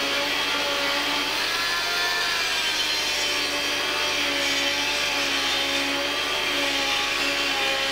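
Hand-held power grinder grinding a steel steam-locomotive rod, a steady running hum and hiss whose pitch wavers a little as the disc bites into the metal.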